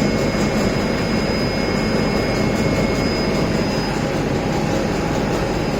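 Steady, loud machinery noise of a UV coating line (roller coater and curing unit running), with two faint high whines that die away around three and four seconds in.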